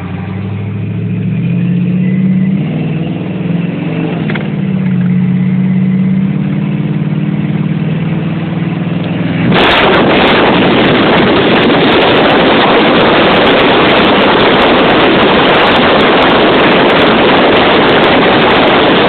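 A vehicle engine running and revving, its pitch rising and falling. About ten seconds in, a loud, even rushing noise of wind battering the microphone of the speeding vehicle sets in suddenly and drowns out everything else.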